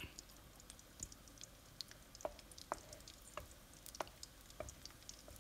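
Onions sautéing in hot oil in a frying pan: faint sizzling with scattered light ticks and clicks as they are stirred.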